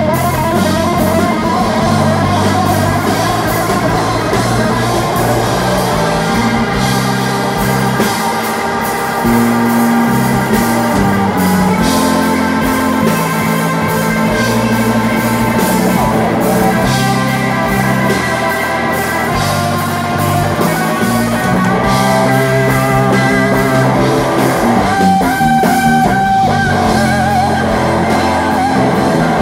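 A live blues-rock band plays an instrumental passage loudly: electric guitar lines over bass guitar and drum kit. About 25 seconds in, the playing turns more clipped and rhythmic.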